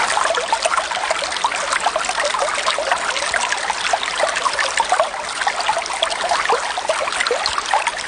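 Stream water flowing steadily, a dense babble of many small splashes and gurgles.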